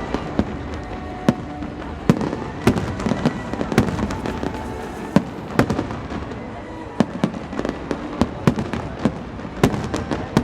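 Fireworks display: an irregular run of sharp bangs, several a second, over a continuous rumble of distant bursts.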